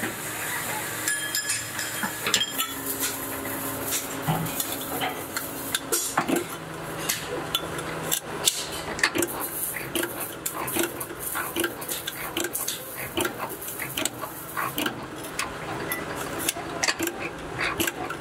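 Repeated metallic clanks and knocks in quick, uneven succession, from a power press punching holes in a steel muffler tube.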